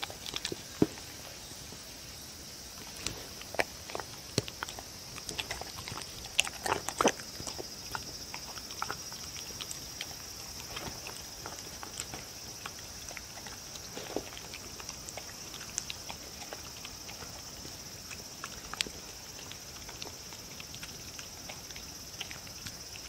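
A dog licking and chewing soft food off a wooden board: irregular wet smacks and clicks, busiest in the first several seconds and sparser after, over a steady high hiss.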